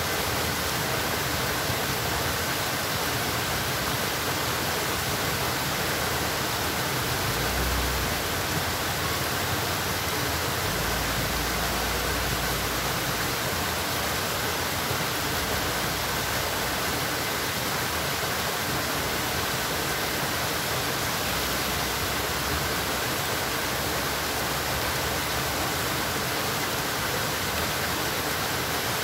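Steady rush of flowing water, as at a canal or river, a constant even hiss with no breaks.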